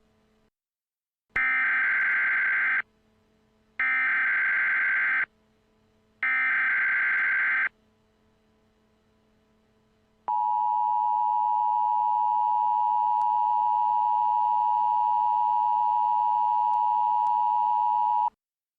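Emergency Alert System tones. First come three short bursts of warbling digital header data, each about a second and a half long and evenly spaced. Then the two-tone attention signal sounds as one steady high tone for about eight seconds and stops abruptly near the end.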